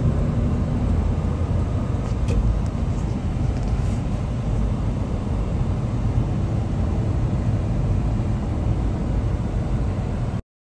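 Steady low road rumble inside a moving car, which cuts off suddenly near the end.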